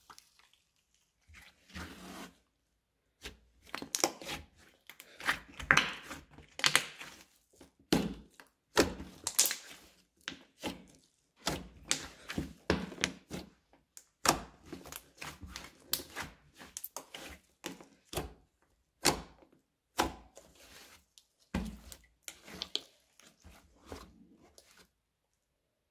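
Soft slime textured with kinetic sand being stretched, folded and pressed by hand, giving an irregular run of sticky clicks and crackles.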